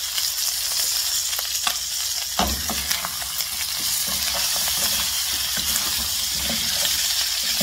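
Chicken pieces sizzling in hot oil as they brown, with a wooden spatula stirring them and making frequent short scrapes and knocks against the pan, one louder knock about two and a half seconds in.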